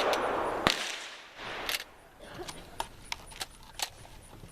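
A shotgun blast fading away at the start, a second sharp shot less than a second in, then scattered metallic clicks and rattles of the gun being handled.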